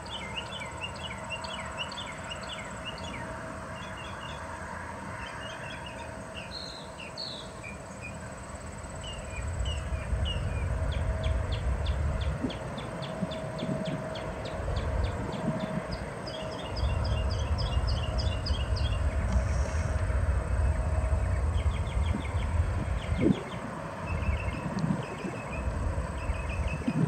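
Distant CFM56 jet engines of a Boeing 737-800 on its takeoff run. A low rumble with a faint steady whine grows louder about ten seconds in and again later. Birds chirp throughout.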